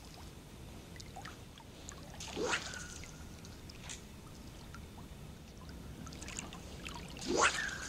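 Fly line swishing during casts of a shooting-head line: two rising swishes with a brief whistle, about 2.5 seconds in and again near the end, the first followed by a short sharp tick, over a soft background of water lapping at the shore.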